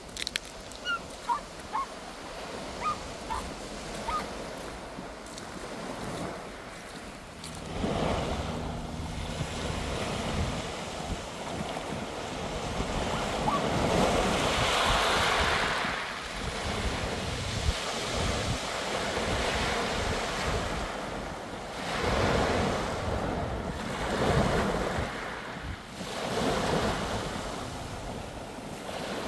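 Small waves breaking and washing up a shingle beach, the surf swelling in repeated surges every few seconds, with wind on the microphone. A few short high calls sound in the first few seconds.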